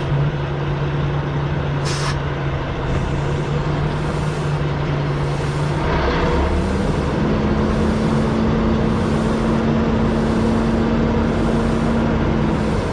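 Semi-truck diesel engine running steadily, heard from inside the cab of an International LoneStar; about six to seven seconds in its note steps up to a higher steady pitch. A short hiss comes about two seconds in.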